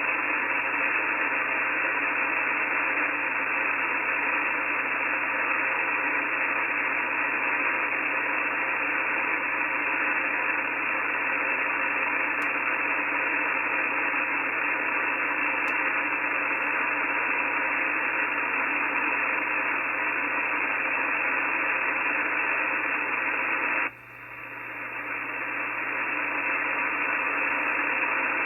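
Shortwave transceiver hiss on the 17-metre amateur band: steady static squeezed into a narrow voice-band range, with no station coming through. Near the end it drops out abruptly and swells back over a couple of seconds.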